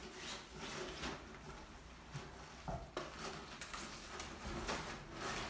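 Golden Mountain Doodle puppies scuffling about: irregular light rustling and clicking of paws on a wooden floor and against a fabric play tunnel, with a sharper click about three seconds in.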